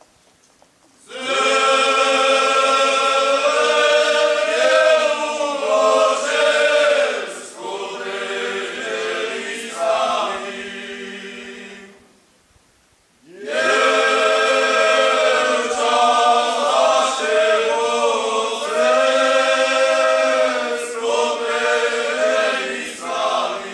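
Men's folk choir singing a Slovak folk song a cappella in several voices. Two long phrases, with a short pause about halfway through.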